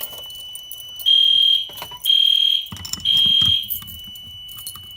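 Fire alarm sounders beeping in the three-beep temporal pattern of a fire evacuation signal: three high beeps about a second apart, a pause, then the next group starting. A fainter steady tone at the same pitch runs underneath, from another alarm not in sync.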